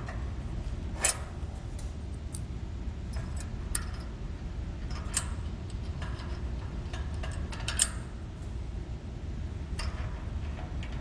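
Scattered light metallic clicks and clinks as a bolt, its washers and a nut are fitted by hand into an aluminium hinge bracket, over a steady low hum.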